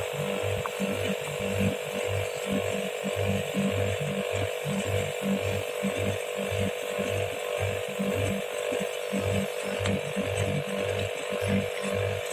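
Split-type air conditioner's outdoor unit running during refrigerant charging: a steady hum with an uneven low throb pulsing a few times a second.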